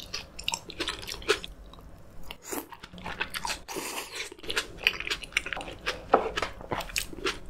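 Close-miked chewing of a sweet stevia tomato slice: a steady run of short, irregular mouth clicks and bites.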